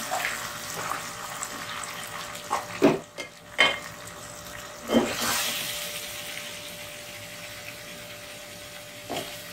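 Marinated beef slices sizzling in hot oil with fried onions in an aluminium pot, with a few knocks and scrapes of a stirring spoon about three seconds in and again about five seconds in. The sizzle swells after the stir at five seconds and then dies down.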